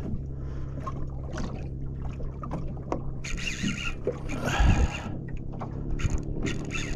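Small fishing boat's outboard motor idling with a steady low hum, and several short rushes of water or wind noise, the strongest about three to five seconds in.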